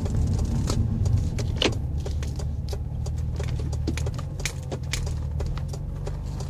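2004 Mazda 6 engine running with a faint whirring whine that follows engine speed; the noise persists with the belts removed, and the owner suspects the automatic transmission's fluid pump. Scattered light clicks and rattles sound over it, one louder about one and a half seconds in.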